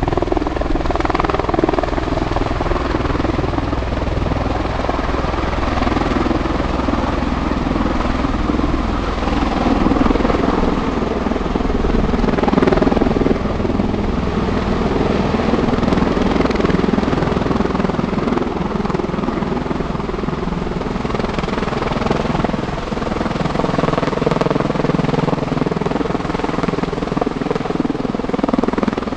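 CV-22B Osprey tiltrotor lifting off and climbing in helicopter mode: its two proprotors, driven by Rolls-Royce AE 1107C turboshaft engines, make a loud, steady, thunderous rotor noise.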